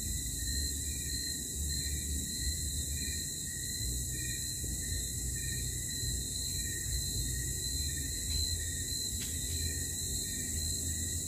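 Steady chorus of night insects such as crickets, shrilling high and pulsing, over a low rumble.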